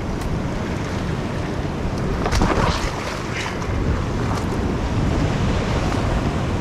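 Rough sea surging and breaking on coastal rocks, with wind buffeting the microphone; a louder wash of surf comes about two and a half seconds in.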